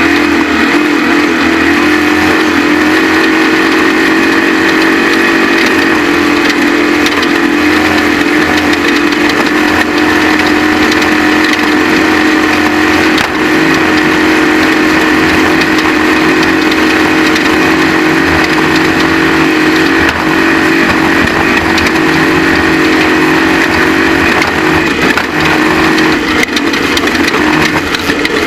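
Off-road race truck running hard at a steady engine pitch, with a constant rough crunching rattle.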